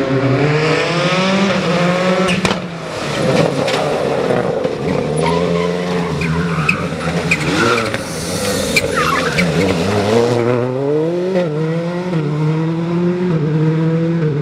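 Skoda Fabia WRC rally car's turbocharged four-cylinder engine at full throttle, its pitch climbing and dropping again and again as it changes gear. There are tyre squeals and a few sharp cracks.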